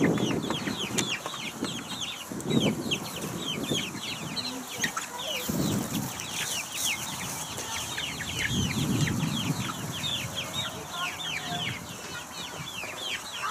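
A flock of eight-week-old chickens calling constantly with many short, high, falling peeps, several at a time, with a few low rumbles now and then.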